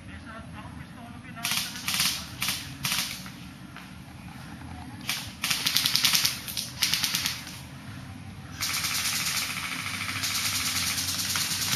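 Airsoft guns firing: several short bursts, then a longer burst of rapid automatic fire. From about two-thirds of the way in, a steady hiss sets in and holds.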